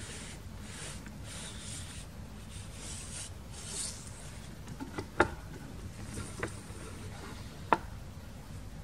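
Kamishibai picture card sliding out of its wooden stage frame: several soft rubbing swishes of card against card in the first few seconds. A few light, sharp clicks follow in the second half.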